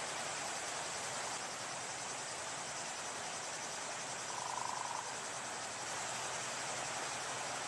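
Steady, high-pitched chirring of insects in a marsh, with a short single note a little past the middle.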